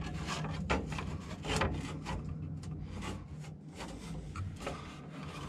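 Plastic blower-fan housing being worked into place by hand over the generator's cooling fan: irregular rubbing and scraping of plastic with small knocks and clicks.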